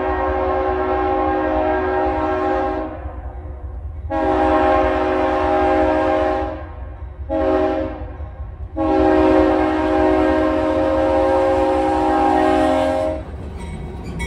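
Union Pacific freight locomotive's multi-chime air horn sounding the grade-crossing pattern: two long blasts, one short, then a final long blast, as the train approaches. A steady low rumble from the oncoming train runs underneath.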